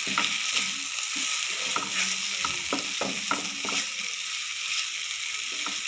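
Thick tomato masala sizzling in hot oil in a non-stick frying pan, cooked down to the stage where the oil begins to separate. A spoon stirs and scrapes through it in many short strokes over the steady sizzle.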